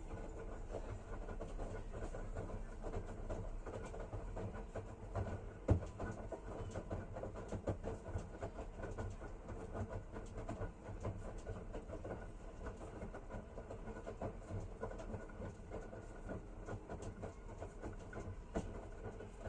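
Washing machine running, its drum turning with a steady low hum and a continual rattle of small clicks, with one sharper knock about six seconds in.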